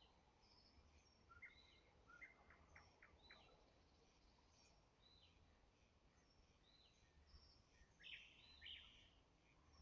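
Thrush nightingale singing faintly: a short hooked note repeated about once a second, a run of quick clicking notes about two seconds in, and a louder, fuller phrase near the end, over a low steady background rumble.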